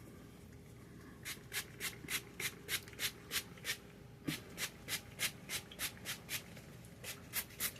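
Leave-in conditioner pump spray bottle spritzing onto hair in quick runs, about three short hissy sprays a second, with two brief pauses and one dull knock about halfway through.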